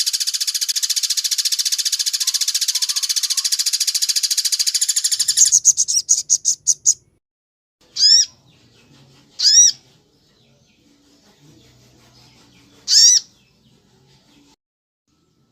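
Recorded bird calls used as a songbird training track. A loud, very fast rattling trill lasts about five and a half seconds and breaks into a few slower pulses. Then comes a short, sharp arched call, repeated three times with pauses between.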